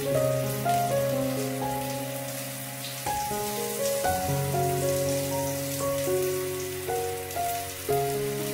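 Background music, a melody of held notes over steady bass notes. Under it is a faint steady crackle of pig blood cake cubes frying in oil in a pan.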